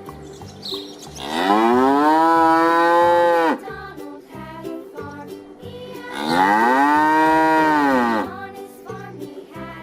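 A cow mooing twice: two long moos, the first about a second in and the second about six seconds in, each rising in pitch at the start, held for about two seconds, then dropping off.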